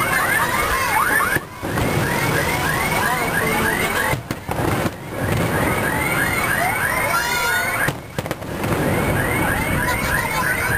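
Aerial fireworks display going off, mixed with a high warbling sound that repeats about five times a second and breaks off briefly a few times.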